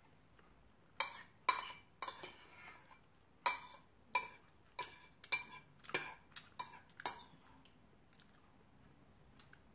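A metal eating utensil clinking against a bowl: a run of about a dozen sharp, ringing clinks over roughly six seconds, then a few faint ones near the end.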